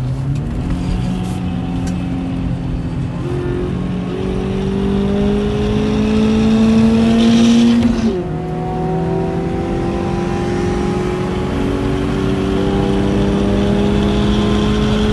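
Inside the cabin, the M42 1.8-litre four-cylinder of a BMW E36 318ti Compact pulls hard under acceleration. Its pitch climbs steadily, drops sharply at an upshift about eight seconds in, then climbs again.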